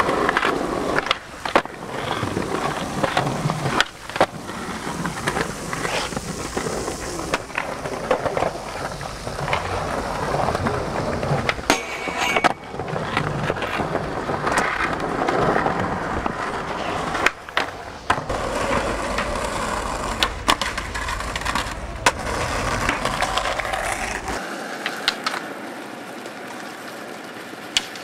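Skateboard wheels rolling over smooth concrete, broken every few seconds by sharp cracks of the board popping and landing.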